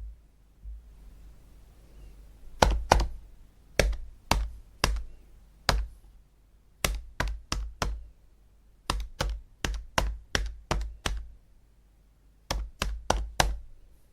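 Calculator buttons being pressed: sharp, separate clicks in irregular runs of two to six, after a pause of about two and a half seconds at the start.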